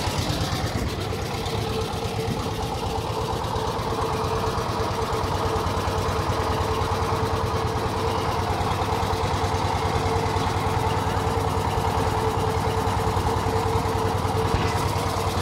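Wooden river boat's engine running steadily under way, a fast, even chugging with a steady hum over it.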